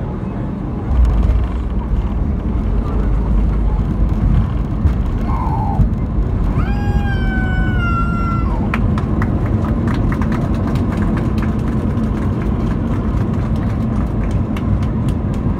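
Airbus A320 cabin noise during the landing rollout: a steady rumble of engines and wheels on the runway, with a heavier low rumble for a few seconds starting about a second in. A brief high-pitched tone sounds for about two seconds a little past the middle, and light rattling clicks come in the second half.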